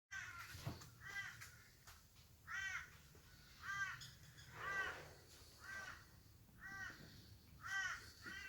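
A bird calling repeatedly: about eight harsh, caw-like calls, roughly one a second.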